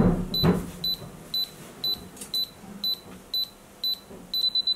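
Camera self-timer beeping, short high beeps about twice a second, switching near the end to a rapid run of beeps as the countdown nears the shutter release.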